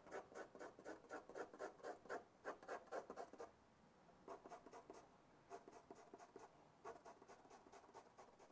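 Graphite pencil scratching across drawing paper in quick, even hatching strokes, about four a second. After about three and a half seconds the strokes pause briefly and then resume more softly as the shading is faded out.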